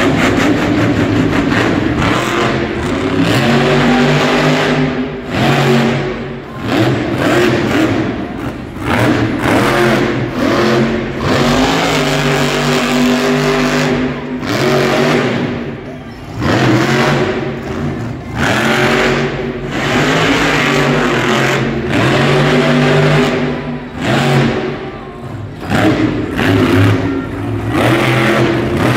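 Whiplash monster truck's supercharged V8 revving hard over and over, its pitch climbing and falling as the throttle is worked, with brief drops where the driver lifts off.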